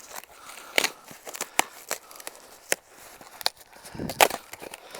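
Cardboard shipping box being handled and opened: a string of irregular sharp cracks and rustles, busiest about four seconds in.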